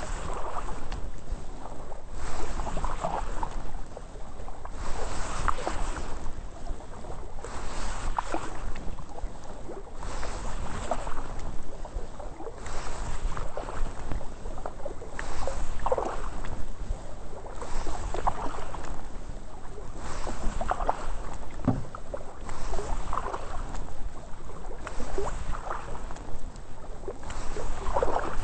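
Kayak paddle strokes: the blade dips and pulls through calm water with a splash and trickle about every two and a half seconds, over a steady low rumble.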